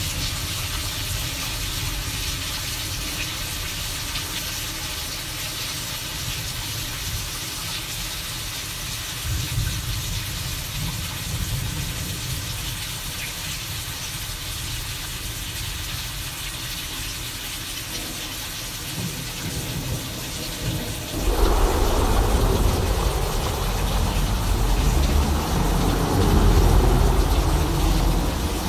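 Simulated thunderstorm: a steady rain-like hiss over a low rumble, then about two-thirds of the way through a sudden loud roll of thunder that keeps rumbling and swelling.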